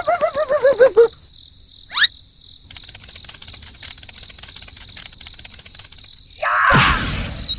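A run of cartoon sound effects: a wobbling, falling tone for about a second, a quick rising whistle, a stretch of faint rapid clicking, a loud burst of noise, then a falling, warbling whistle near the end.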